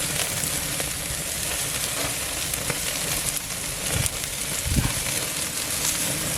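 Marinated chicken thighs sizzling and crackling on a hot grill, a steady sizzle with fine pops throughout.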